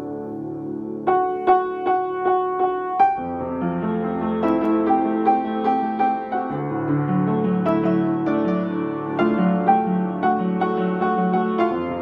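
Piano music: a held chord, then a run of repeated struck notes from about a second in, with low bass notes joining about three and a half seconds in under a fuller, flowing texture.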